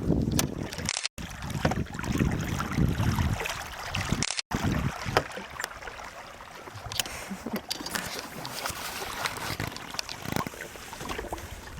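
Canoe moving on a lake: steady wind and water noise with a few short knocks, heaviest in the first few seconds. The sound cuts out completely twice, briefly, near the start.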